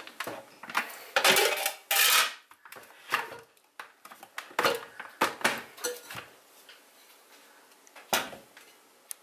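Bosch stand mixer being taken apart after kneading: the plastic splash-guard lid lifted off and the stainless steel bowl with the dough hook removed, a run of plastic and metal knocks, clacks and scraping. The busiest, loudest clatter comes in the first two seconds or so, with a few single knocks later.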